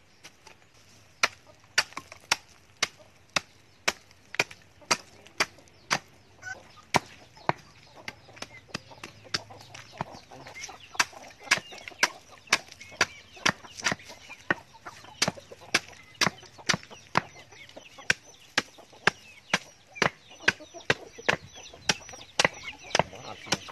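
Small hand axe chopping into a dry termite nest, a steady run of sharp strikes about two a second, with chickens clucking in the background during the second half.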